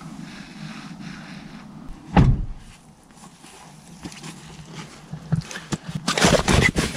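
One loud thump about two seconds in, then near the end a burst of rustling as a sleeping bag is shoved in through a rooftop tent's fabric door.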